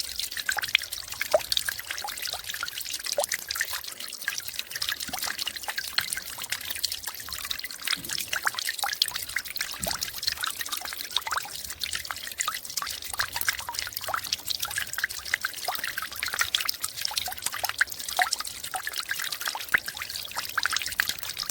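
Snowmelt trickling and dripping as it runs off: a steady patter of many small drips over a continuous trickle.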